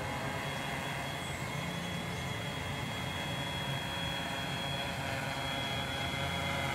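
Tarot FY680Pro hexacopter's six brushless motors and 12-inch propellers running steadily as it hovers: a constant drone with a thin high whine over it.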